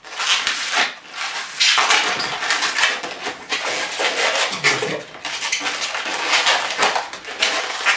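Latex modelling balloon squeaking and rubbing as it is handled and pinch-twisted, locking a cluster of three small bubbles together. The squeaking comes in several stretches with short breaks.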